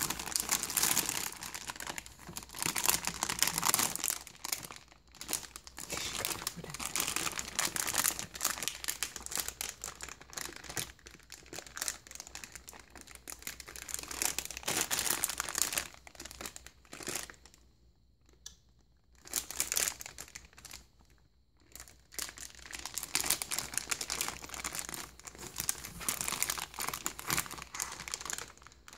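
A baby crinkling and crumpling a foil bag in her hands, in irregular bursts of rustling, with a couple of short pauses in the second half.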